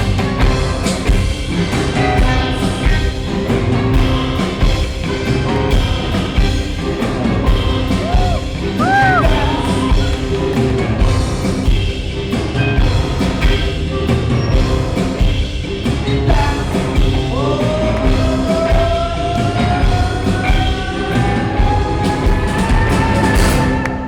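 Live rock band with drum kit playing the end of the song loud and dense. A long held note rises slowly through the last several seconds, and the music stops right at the end.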